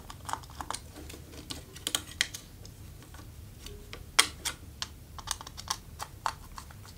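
Light, irregular clicks and scrapes of a screwdriver on a terminal screw of a plastic lampholder as a wire is tightened down and the wires are handled, with one sharper click about four seconds in.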